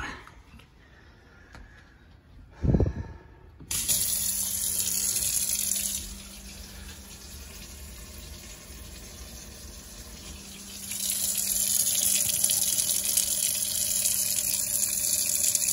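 Kitchen faucet turned on and running into a stainless-steel RV sink, a steady rush of water with a low hum under it, to test whether the drain is still clogged after the trap was refitted. A knock and a heavier thump come first. The water starts suddenly a few seconds in, dulls for a few seconds in the middle, then is loud again.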